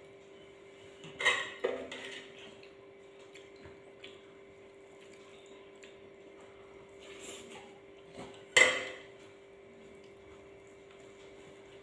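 A metal spoon clinking and scraping against ceramic bowls, with two louder clatters, one just over a second in and one about three-quarters of the way through.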